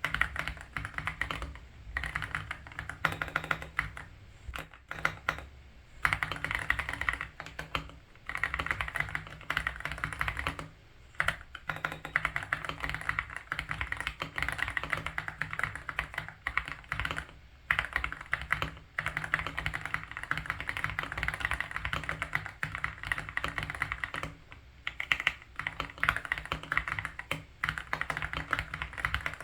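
Fast, continuous typing on an Aula F87 Pro mechanical keyboard fitted with Haimu Ice Silver linear switches: a dense stream of key clacks, broken several times by short pauses.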